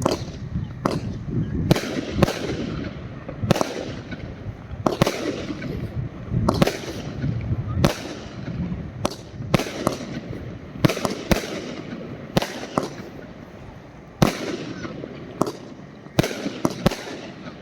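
Svea Fireworks 'Spartacus' fireworks cake firing its shots one after another, about one sharp bang a second, each followed by a trailing crackle.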